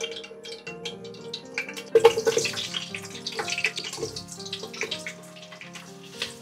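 Water running from a kitchen tap and splashing, starting suddenly about two seconds in, over steady background music.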